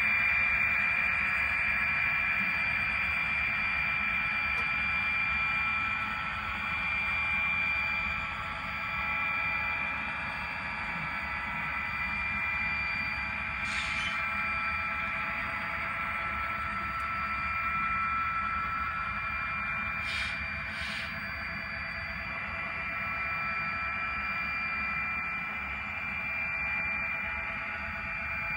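HO scale model train running on the layout, a steady whine of several held tones. Three short hissing bursts come about 14 seconds in and twice just after 20 seconds.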